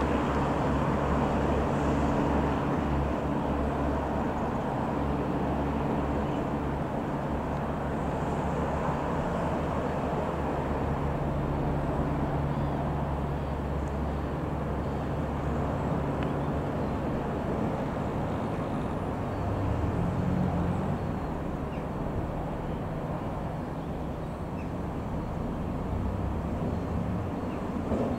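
Piper PA-28-161 Warrior II's four-cylinder Lycoming piston engine and propeller droning steadily as the aircraft flies away, slowly growing fainter.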